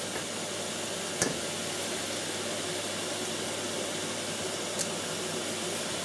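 Stir-fry vegetables sizzling steadily in a hot pan, with a couple of short sharp clicks, the loudest about a second in.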